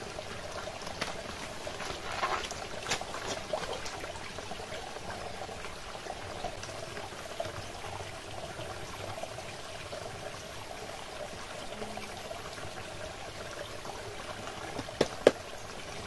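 Small forest stream trickling and splashing over rocks into a shallow pool, a steady burble. Two sharp clicks sound about a second before the end, louder than the water.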